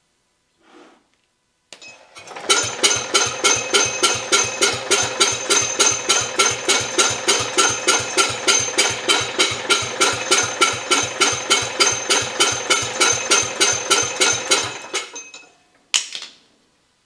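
Garden tractor's air-cooled engine being cranked over on its electric starter for about twelve seconds, an even chugging of about three to four compression beats a second, turning the hydraulic pump to draw fluid into the system; it winds down and is followed by one sharp click.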